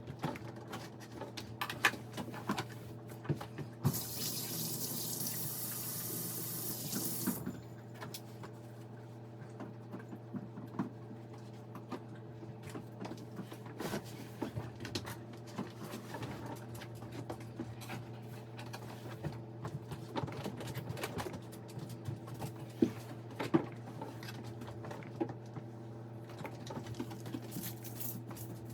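Sink faucet running for about three and a half seconds a few seconds in, then shut off sharply. Scattered small knocks and clatter sit over a steady low hum.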